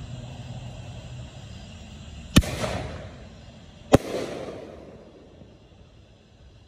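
Two aerial firework bursts about a second and a half apart, each a sharp bang followed by a rumbling echo that fades over a second or so.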